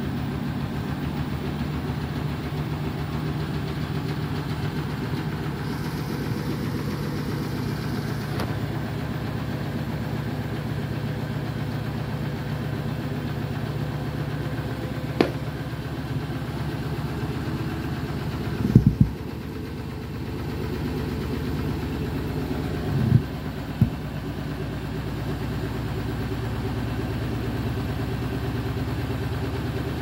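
Beko WTK104121W front-loading washing machine's drum turning with a steady motor hum as it tries to even out an overloaded, unbalanced load before an intermediate spin. A few sharp knocks come around the middle and about two-thirds of the way through.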